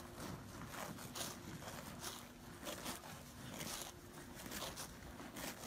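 Cattle grazing, tearing grass with their mouths: faint, irregular short ripping crunches, about two or three a second.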